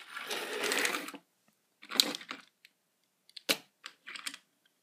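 Small toy cars being handled on a hard surface: a scraping rustle for about a second, then a few scattered clicks and short rattles.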